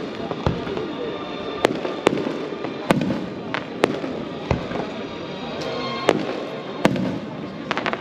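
Aerial fireworks bursting: about ten sharp bangs at irregular intervals, some close together.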